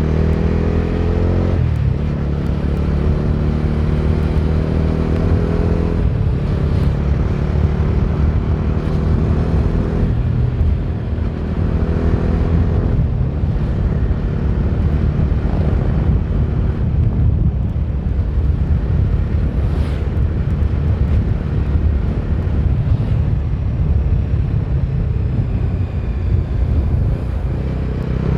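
Bajaj Dominar 250's single-cylinder engine, heard while riding. It rises in pitch as the bike accelerates, drops back at gear changes about one and a half seconds and six seconds in, then runs at a steadier cruise under a haze of road and wind noise.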